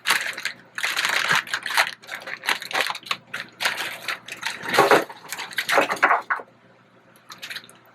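A plastic bag of frozen crinkle-cut fries rustling and crinkling as it is handled and the fries are tipped out, in a run of irregular bursts that die away about six seconds in.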